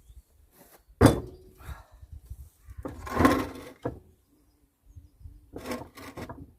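An old cast bench vise being handled and shifted on a workbench: a sharp knock about a second in, a longer scraping sound around three seconds, and a few quick clicks near the end.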